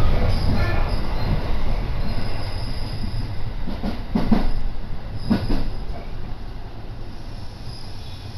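Commuter electric train on the JR Gakkentoshi Line running, a steady rumble with faint wheel squeal and a few knocks about halfway through. It grows quieter near the end as the train slows for its stop at Tokuan.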